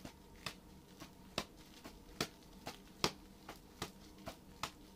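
Nunchucks being swung round, giving short sharp clicks about two or three times a second in a fairly even rhythm.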